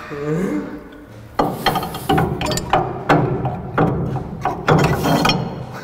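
Steel rear half shaft being pushed and worked into a Mk1 Ford Escort's axle casing: metal-on-metal clunks and scraping, two or three a second from about a second and a half in, as its end is worked into the differential.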